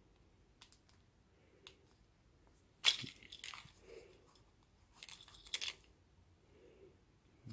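Handling noise from a handheld phone: a few faint clicks, then two short crackling rustles about three seconds in and again about five seconds in.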